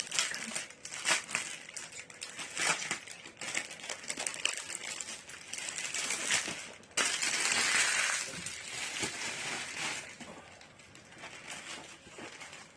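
Packaging being handled and ripped open, with sharp crinkles and crackles. About seven seconds in comes a louder, unbroken stretch of crinkling and tearing lasting about three seconds, then softer rustling.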